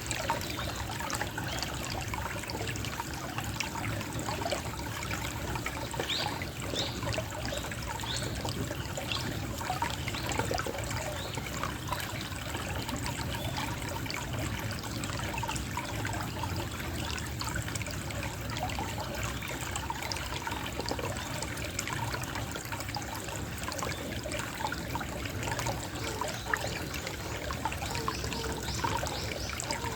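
Gently trickling water, a steady babble of small splashes.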